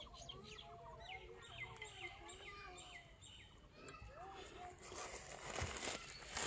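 Birds calling in the background: many quick falling chirps over lower, arching calls. A rustle of movement and a knock come near the end.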